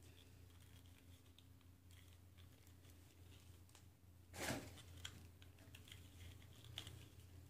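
Near silence: room tone with a steady low hum and a few faint clicks, broken once about halfway through by a brief rustle.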